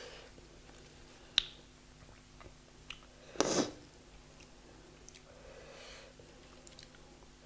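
Close-miked eating of butter naan with curry: soft chewing, a single sharp click a little over a second in, and a short, louder burst of noise about halfway through as the naan is torn and dipped into the curry.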